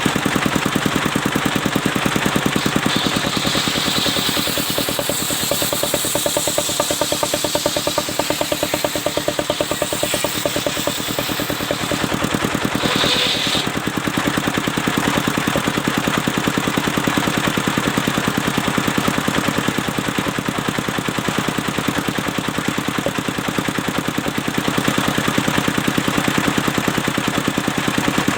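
Engine driving a mobile circular sawmill, running steadily, with brief higher-pitched hissing now and then.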